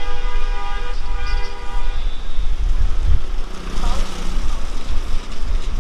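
A long horn blast with a steady multi-note tone, broken briefly about a second in and stopping about two seconds in, over heavy wind rumble on the microphone.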